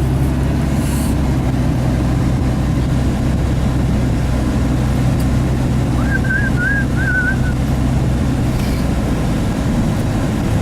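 Pickup truck's engine and tyres on a rough road, heard as a steady low hum and rumble inside the cab while driving slowly. A brief high warbling chirp sounds about six seconds in.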